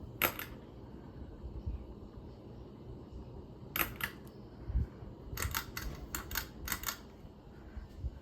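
Hunter Brighton ceiling fan running with a low steady hum, broken by sharp clicks. A pair of clicks comes near the start and another just before four seconds in, then a quick run of about six clicks follows between five and seven seconds in.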